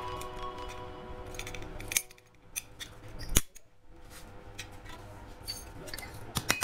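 Steel hand-saw blade being worked on a steel anvil block: light metal scraping and clinks, then one sharp metallic knock about three and a half seconds in. Near the end comes a quick, even run of light hammer taps on the blade.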